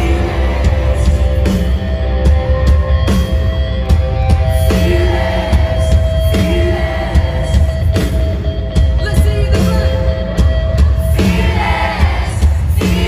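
Live rock band playing loud, bass-heavy music, with a male singer singing into a microphone over the band.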